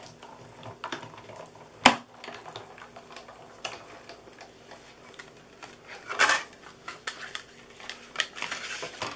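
Stampin' Cut & Emboss die-cutting machine being hand-cranked, drawing a clear plastic plate sandwich with a steel die through its rollers: scattered clicks and creaks, with a sharp click about two seconds in and a louder scrape about six seconds in. The die runs through straight, which makes it a little harder to crank through.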